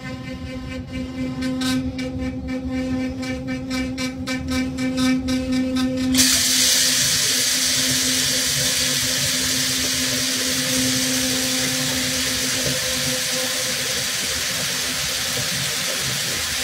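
A steady low hum with faint ticking. About six seconds in, a bathroom tap is turned on and water runs in a steady hiss.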